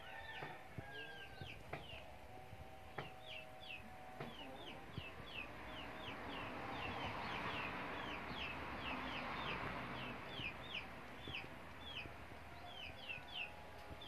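Chickens calling: a long run of short, high, falling peeps, about two to three a second, with lower clucking calls in the first few seconds. A soft rushing noise swells up in the middle.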